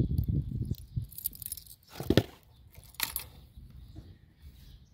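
A bunch of keys jangling and clinking in someone's hands, with the loudest clinks about two and three seconds in. A low rumble comes in the first second.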